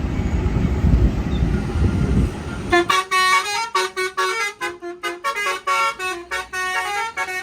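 A low rumble for the first few seconds, then a bus's Basuri telolet horn plays a quick melody of short, changing notes from about three seconds in.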